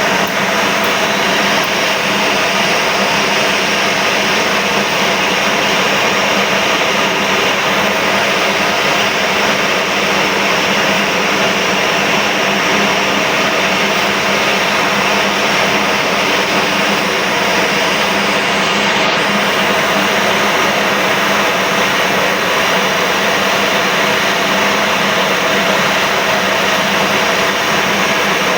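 Spice pulverizer mill running steadily: a loud, even whir with a steady hum through it.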